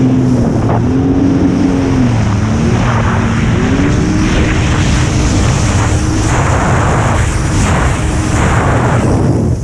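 Jet ski engine run hard at full throttle, its note dipping briefly about two seconds in, then climbing back and holding steady, with rushing wind and water spray.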